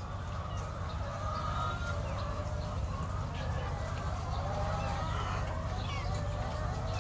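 Chickens clucking and calling, many short wavering calls overlapping, over a steady low rumble.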